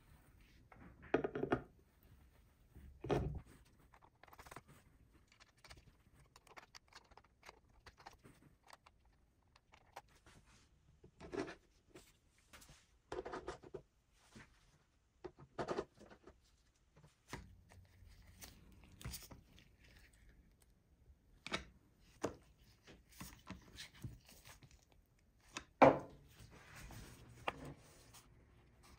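Intermittent knocks, clunks and handling noises of electric skateboard parts, trucks with urethane wheels and a plastic battery enclosure, being set down and fitted onto an epoxy-coated deck on a foam mat. The loudest thuds come a few seconds in and near the end.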